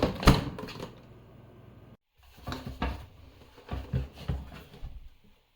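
Hard plastic knocks and rattles from a vacuum cleaner's dust cup being handled and opened: one sharp knock just after the start, then a run of irregular clicks and clunks.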